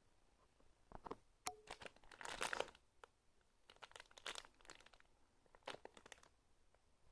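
Clear plastic packaging bag around a squishy toy crinkling as it is handled and pressed, in a run of short rustles, loudest about two and a half seconds in.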